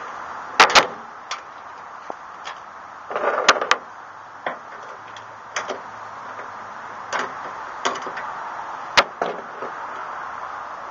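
Sharp metal clicks and clinks, about six spread unevenly through the stretch, as a replacement cable tailgate strap and a washer are handled and fitted onto the side stud of a Chevy S-10 tailgate. A steady hiss runs underneath.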